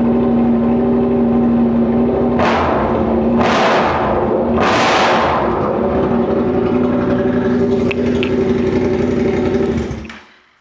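Motorcycle engine running loud with the exhaust muffler can removed: idling, three quick throttle blips about two and a half, three and a half and five seconds in, then idling again and shutting off just before the end.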